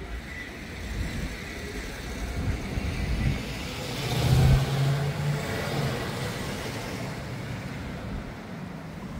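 A car driving past, growing louder toward the middle with a brief engine hum, then fading away.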